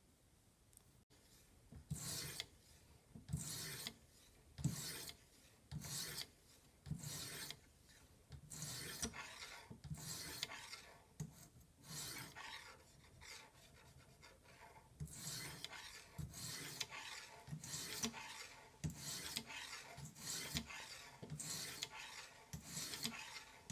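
Pocket knife blade scraping varnish off wooden knife handle scales in repeated strokes, starting about two seconds in at roughly one a second, then coming quicker and closer together.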